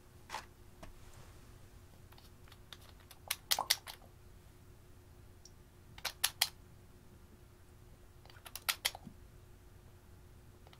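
Clusters of three or four sharp clicks, one cluster about every two and a half seconds: a liquid makeup applicator wand knocking on glass as gold streaks are painted onto a glass dish.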